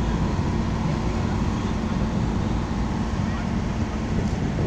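Passenger boat's engine running with a steady, even drone.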